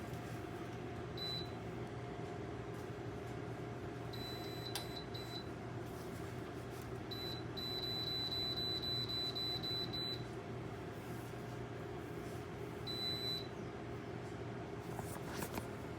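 High-pitched electronic beeps from a Dreo tower space heater's control panel as its buttons are pressed: a single beep about a second in, a quick run of beeps around four to five seconds, a fast unbroken string of beeps for about two and a half seconds from roughly seven seconds, and one more beep near thirteen seconds. Underneath, the heater's fan hums steadily.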